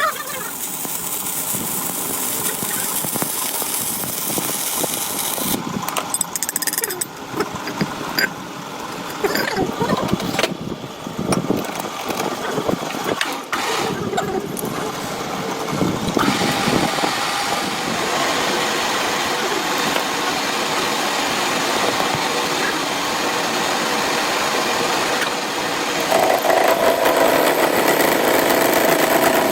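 Metalworking machinery running on steel in a workshop. A broad mechanical noise is broken by knocks and swells in the first half, runs steadier from about halfway, and a humming tone comes in near the end.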